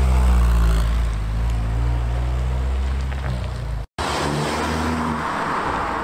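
A car engine running low and steady as the car rolls slowly past, then a sudden cut to another car's engine running.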